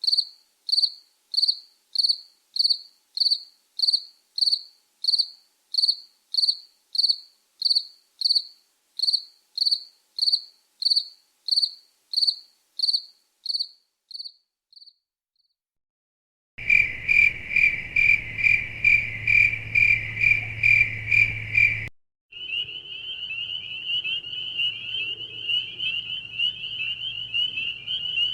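Crickets chirping, in a string of separate recordings: first high, even chirps about one and a half a second that fade out about halfway; after a short gap, a lower-pitched cricket chirping faster over a low hum; then, for the last few seconds, a continuous wavering trill.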